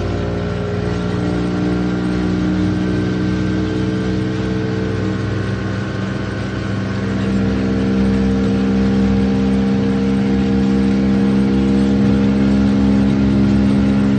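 Outboard motor of a small boat running at speed, a steady engine drone that rises a little in pitch and loudness about seven seconds in.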